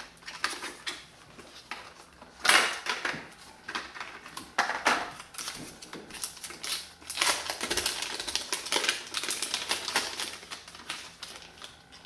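Plastic packaging clicking and crinkling as an SSD is handled and unpacked by hand, in a string of short irregular bursts, a few of them louder than the rest.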